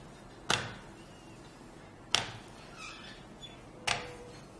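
Three short, sharp taps about a second and a half apart, each dying away quickly, over a quiet room.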